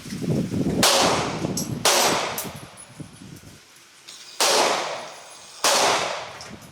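Four gunshots from a firearm in two pairs, each pair about a second apart, every shot ringing out and fading over about a second.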